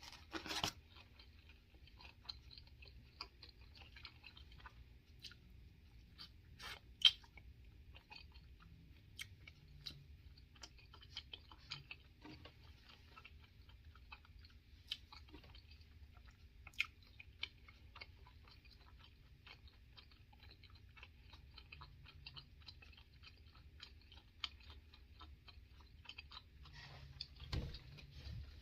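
A person chewing olives close to the microphone: a steady run of small wet mouth clicks, with a few louder ones, and a fuller, lower sound near the end.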